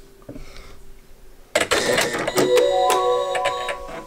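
Janome Horizon Memory Craft 15000 sewing machine being switched on: a sudden noisy burst about a second and a half in as it powers up, then its start-up chime, a few rising notes that ring together and fade near the end.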